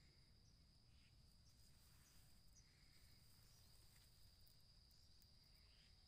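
Near silence: a faint, steady high-pitched insect drone with a few faint short chirps, over a low rumble.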